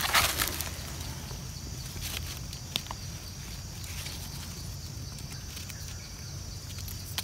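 Faint rustling and light clicks of hands working in dry leaf litter, pulling mushrooms and trimming a stem with a small knife, with one sharper click about three seconds in, over a quiet, steady forest background.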